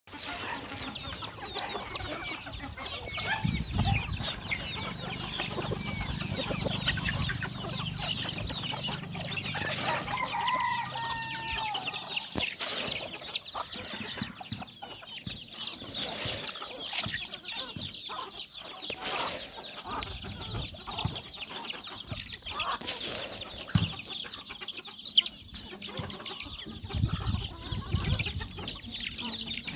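A flock of free-range native chickens clucking, with many short, high peeping calls from chicks throughout and a longer call about ten seconds in. Two sharp knocks come about a second apart near the end.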